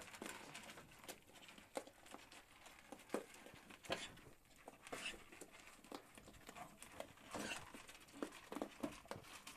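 Several goats feeding on dry corn kernels from a shallow tray: faint, irregular crunching and clicking as they eat and nose around the tray.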